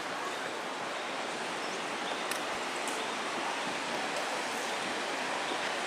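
Steady rush of a mountain river running through the canyon below.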